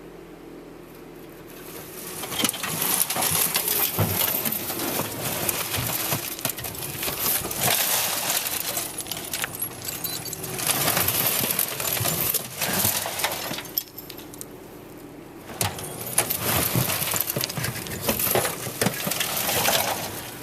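Big metal toolbox loaded with loose junk tumbling and scraping over the ground, rattling and clanking in two long bouts with a short lull between. A steady low hum runs beneath.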